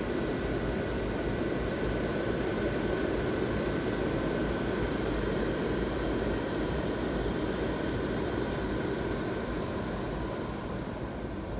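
Steady whirring hum of the blower fans that keep a crowd of inflatable Christmas decorations inflated, with a few faint steady tones over it; it eases off a little near the end.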